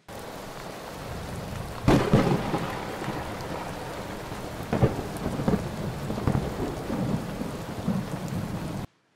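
Thunderstorm sound effect: steady rain hiss with a sharp, loud thunderclap about two seconds in and several smaller cracks later, cutting off suddenly near the end.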